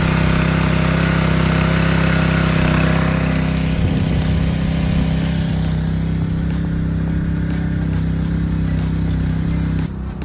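Small gasoline engine of a portable water pump running at a steady speed while it pumps water through a hose. The hum stops abruptly near the end.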